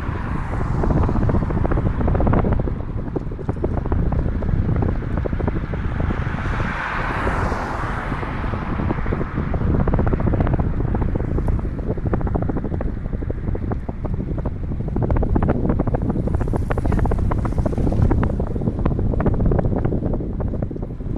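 Wind buffeting the microphone of a camera on a moving bicycle: a steady rumbling rush, with many small ticks and rattles from the ride, and a louder rushing patch about seven seconds in.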